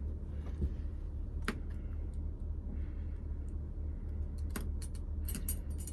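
Small metallic clicks as a lock cylinder and its horseshoe retaining clip are handled: a sharp click about a second and a half in and a quick cluster of clicks near the end, over a steady low hum.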